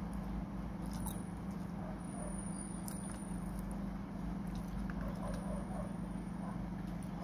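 Steady low hum in the background, with a couple of light clicks of a metal spoon against a plate as food is scooped, and faint squeaky chirps a little after halfway.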